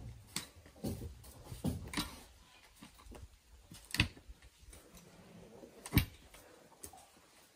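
Two-handled manual post-hole digger being driven into the soil: sharp thuds at irregular intervals, the loudest about four and six seconds in.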